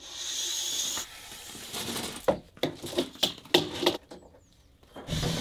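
An aluminium saw guide rail being slid across a wooden formwork board, a hiss of rubbing, then several sharp knocks and clicks as the rail and tools are set down and handled on the bench. A louder, lower rush begins near the end.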